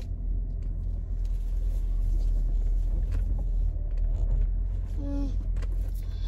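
Steady low road and engine rumble inside a moving car. A short pitched sound, about a quarter of a second long, comes about five seconds in.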